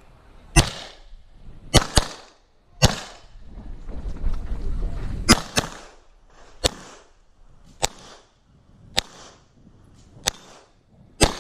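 CZ P-10 C pistol firing about eleven shots at an uneven pace, including two quick pairs. A low rumble runs through the middle of the string.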